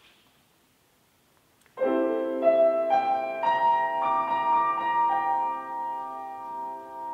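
Grand piano entering about two seconds in after near silence with a sustained chord, then further notes added one after another over the next two seconds and left to ring, slowly fading.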